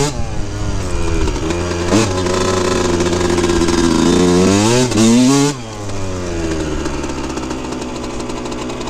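A 2003 Yamaha YZ125's single-cylinder two-stroke engine is revving under throttle as the bike is ridden. There is a quick rev about two seconds in, then a longer climb in pitch. A little past halfway the throttle shuts, and the engine drops suddenly to a quieter, lower, steady run.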